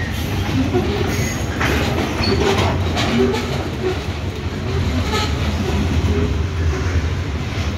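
Freight train of covered hopper wagons rolling past close by: a steady low rumble of the wagons, with sharp wheel clacks over the rails every second or so.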